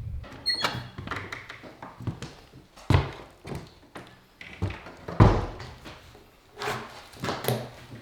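A series of irregular knocks and thuds, about five in all, the loudest a little after five seconds in.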